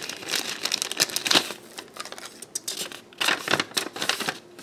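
Thin clear plastic bag crinkling in irregular spurts as hands handle it and work it open.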